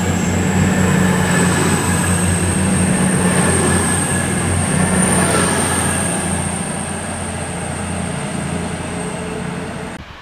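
East Midlands Trains Class 222 Meridian diesel multiple unit moving along the platform, its underfloor diesel engines running with a steady low drone under a thin high whine that rises slightly in pitch. It fades somewhat after about six seconds and cuts off just before the end.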